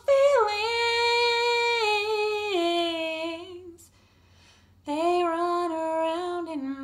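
A woman singing a slow melody unaccompanied, holding long notes that step down in pitch. There is a short pause about four seconds in before the next phrase.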